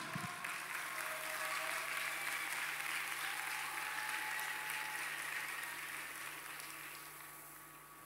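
Arena audience applauding, dying away near the end.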